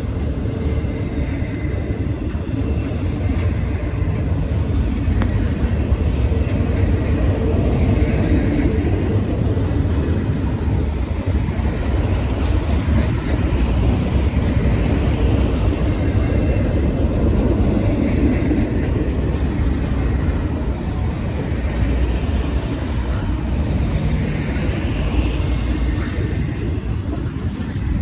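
Freight train cars rolling past at speed: a steady, loud rumble of wheels on rail.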